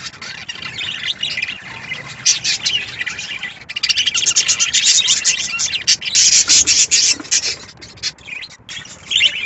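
Budgerigars chirping and chattering in rapid high twitters, busiest in the middle and thinning out near the end.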